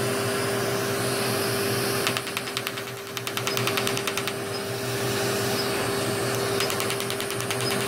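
Er:YAG ablative laser firing on facial skin: rapid runs of sharp clicking pulses, about two seconds in and again near the end, over the steady hum of the laser unit and the suction hose beside the face.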